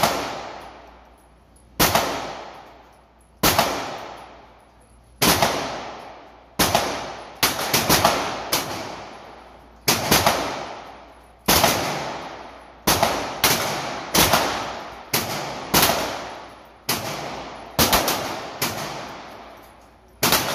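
A compact semi-automatic pistol fired shot after shot, about twenty rounds at an uneven pace of roughly one a second, sometimes two in quick succession. Each report rings on in the echo of an enclosed indoor range.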